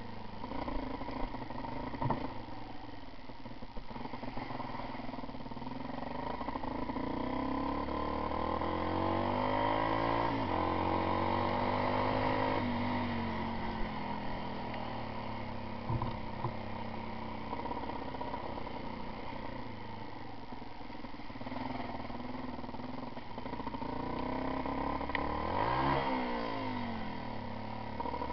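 Motorcycle engine running under load on a rough dirt track, its pitch rising and falling repeatedly as the throttle opens and closes, with a couple of short knocks from bumps.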